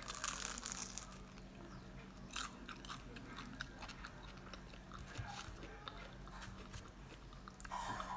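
Close-miked crunchy bite into a fried turon, a banana spring roll in a crisp wrapper, loudest right at the start, followed by chewing with scattered crackles of the fried wrapper.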